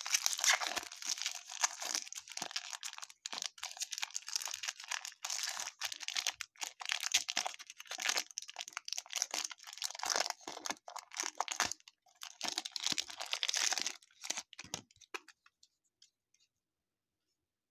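Baseball card pack wrappers crinkling and tearing as packs are ripped open and the cards handled, in a dense run of rustles and crackles that stops near the end.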